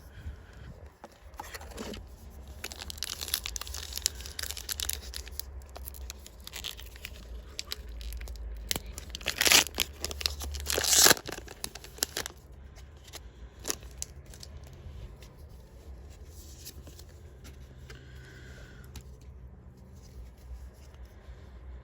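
A trading-card booster pack's wrapper being torn open and crinkled, with two loud rips about halfway through, then quieter rustling of the cards and wrapper.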